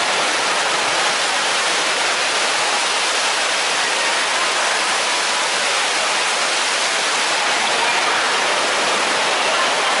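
Whirlpool waterfall: a column of water pouring from an overhead bowl and splashing into a pool below, a steady, even rushing hiss.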